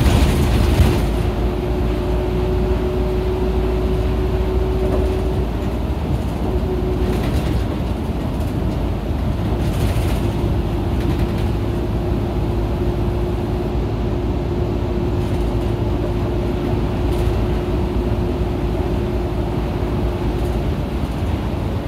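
Cabin sound of an Isuzu KL-LV280N1 city bus under way: a steady low rumble of engine and road noise. A thin steady whine runs for the first five seconds or so, then again from about ten seconds in until near the end. A few brief rattles come through, the loudest right at the start.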